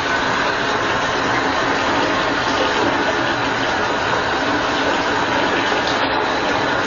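Water running steadily into a bathtub, an even rushing noise.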